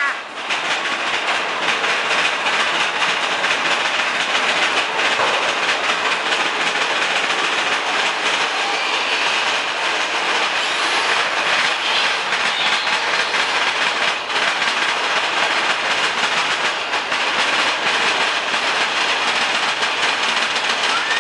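Roller coaster train running along its track, heard from on board: a steady loud rumble with a fast rattle of wheels and cars.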